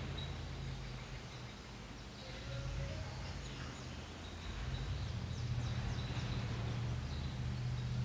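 Outdoor woodland ambience: a steady low hum, with a thin high tone and a few faint bird chirps about five seconds in.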